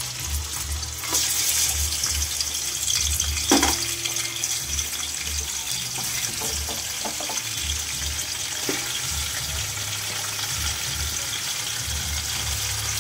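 Hot oil sizzling steadily as pieces of raw mutton are dropped into it, growing louder about a second in as more meat goes in, with a single knock a few seconds in.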